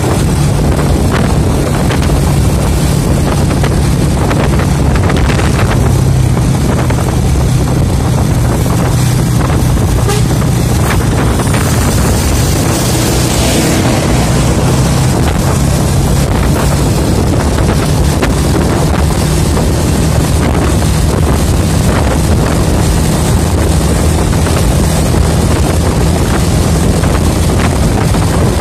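Road-travel noise from a vehicle riding close behind a coach bus: a steady low engine drone with wind rushing over the microphone. About twelve seconds in, a brighter hiss swells for a couple of seconds while riding right alongside the bus.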